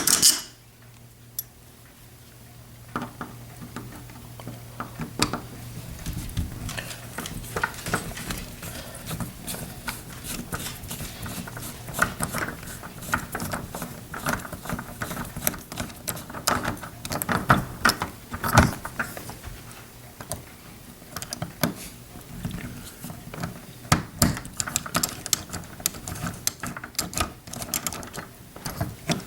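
Hand screwdriver turning out the long mounting screws of a deadbolt's interior plate: irregular metallic clicks and scrapes of the bit in the screw heads. A low steady hum sits under the first several seconds.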